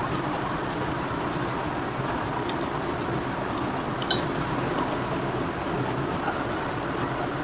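Steady background hum with a single sharp clink about four seconds in, typical of a dish or glass being touched while panipuri is eaten.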